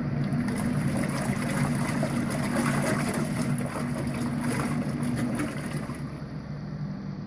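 Small portable washing machine running: a steady motor hum with water churning and sloshing in the tub, easing a little near the end.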